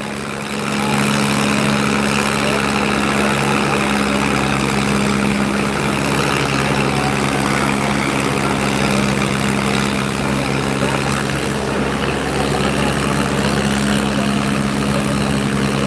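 Two farm tractors' diesel engines running flat out under heavy load as the tractors pull against each other in a tug-of-war; a steady, loud drone that picks up about a second in.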